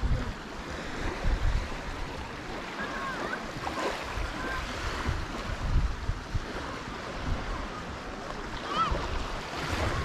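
Sea surf washing ashore in a steady hiss, with gusts of wind buffeting the microphone in low rumbles.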